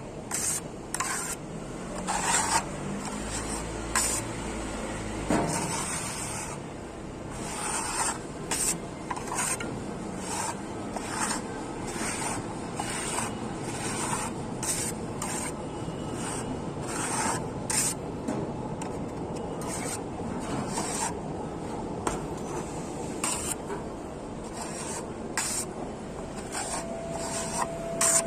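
Plastering tool scraping and rubbing over a fine-grain fibre-reinforced skim coat on a wall, in many short, irregular strokes.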